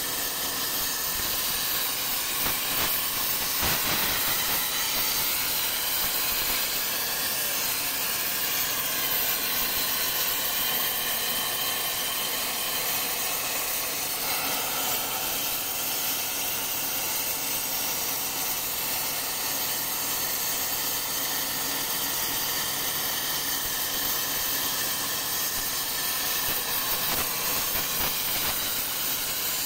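Plasma torch of a CNC-6000P pipe-cutting machine cutting through a metal pipe: a steady hiss of the cutting arc.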